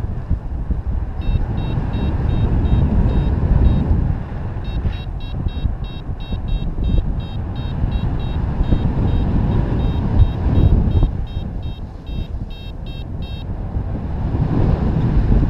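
Wind buffeting the microphone in flight under a paraglider, with a variometer beeping rapidly, about four short beeps a second, which signals climbing lift in a thermal. The beeping breaks off briefly about four seconds in and stops near the end.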